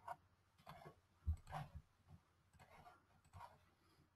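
Several faint computer mouse clicks, scattered irregularly, the loudest a little over a second in.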